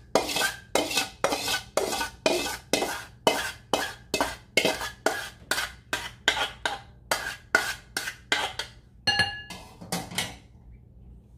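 A metal spoon scraping a pan in quick, even strokes, about three a second, as the freshly made caramel is scraped out into the pudding mould. Near the end there is a ringing metal clink, then the scraping stops.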